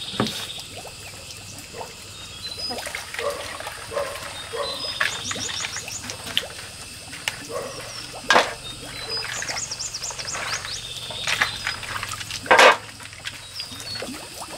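Dishes being washed by hand: water sloshing and pouring as it is scooped from a bucket, with the scrape of a scrubbing brush and a few clatters of dishes, the loudest near the end. Rapid runs of high rising chirps sound twice in the background.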